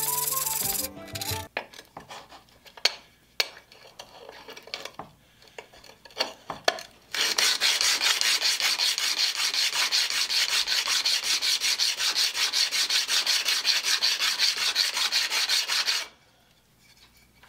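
Steel spoke shave blade, held in a wooden block handle, rubbed rapidly back and forth on 120–150 grit sandpaper on a flat board: a steady rhythmic rasping scrape from about 7 seconds in, stopping near the end, as the back of the blade is flattened. Before it, short background music that ends about a second and a half in, then a few light taps as the blade is set down.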